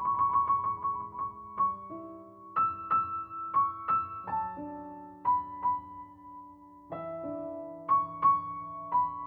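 Soft solo piano background music: a quick trill of repeated high notes at the start, then slow, gentle single notes and chords.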